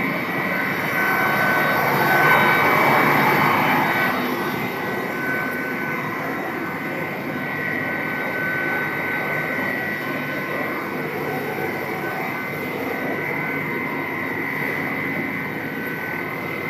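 Plastic sheet extrusion line running: a steady mechanical drone with a constant high whine, swelling a little about two seconds in.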